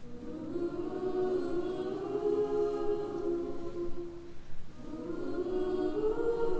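Choir singing sustained chords in long phrases. The singing breaks off briefly about two-thirds of the way through, then the next phrase swells in.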